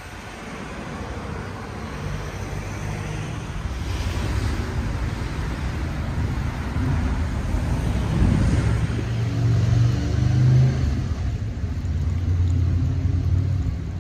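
Road traffic on a town street: cars driving past with a steady tyre and engine noise. In the second half a low engine hum grows louder as a vehicle comes close.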